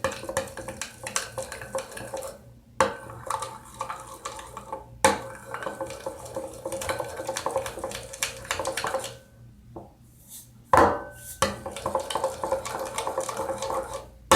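A utensil stirring a glue slime mixture in a bowl, scraping and clinking against the bowl in quick strokes, with a few sharper knocks and two short pauses.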